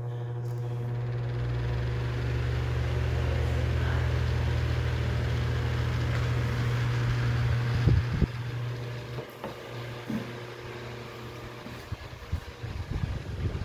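Electric table/wall fan running: a steady motor hum with rushing air that builds over the first few seconds. About eight seconds in come a couple of knocks and the air noise drops, followed by scattered clicks and knocks.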